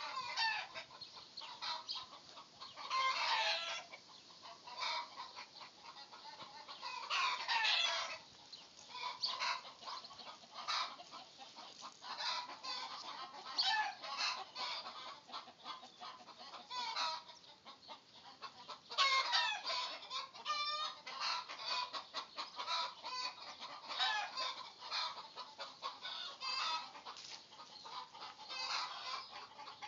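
Chickens clucking: short calls repeating throughout, with louder runs of calls about three, seven and nineteen seconds in.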